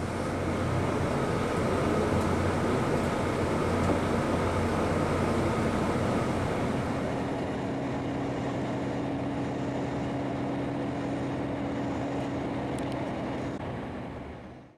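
Steady road noise and engine hum heard from inside a moving vehicle, with a low drone whose pitch shifts slightly about halfway through; it fades out at the end.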